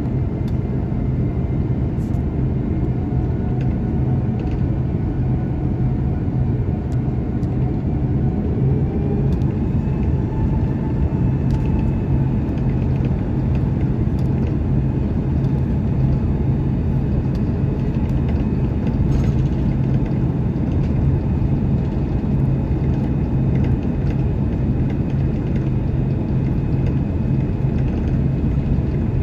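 Airbus A330-300 cabin noise during taxi, heard from a window seat beside the wing-mounted turbofan engine: a steady low rumble with a constant hum. A faint whine rises about ten seconds in.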